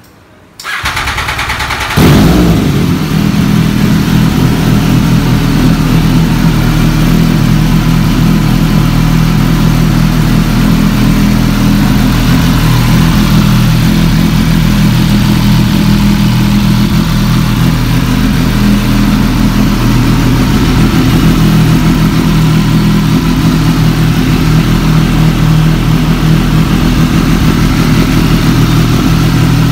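MV Agusta F3 800's three-cylinder engine is cranked and fires up about two seconds in, then idles steadily and loudly through a carbon-fibre slip-on silencer.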